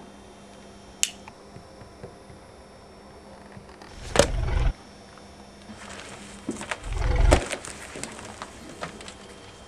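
Exaggerated comic stomach-rumble sound effect: two loud, deep growls, about four and about seven seconds in, the second building up before it peaks, the sign of a man's urgent need for the toilet. A single sharp click about a second in.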